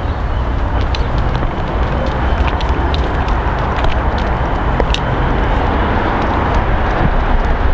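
Loud wind buffeting the microphone: a heavy low rumble under a steady rushing hiss, with a scattered run of small clicks in the middle.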